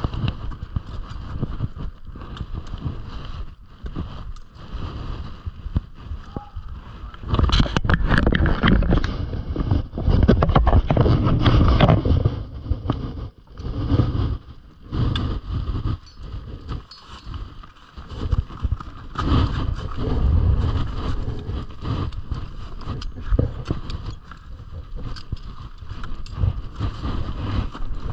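Wind buffeting the camera's microphone in uneven gusts, strongest for several seconds about a third of the way through. Scattered sharp clicks and crunches come from footsteps on the glacier ice.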